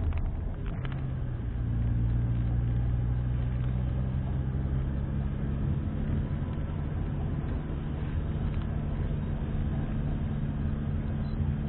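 Car engine running steadily while driving, with tyre and road noise; the hum firms up slightly about a second in.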